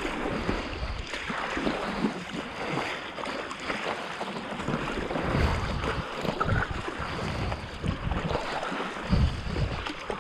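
Sea water sloshing and splashing around a stand-up paddleboard and its paddle, with wind gusting on the microphone in uneven low rumbles.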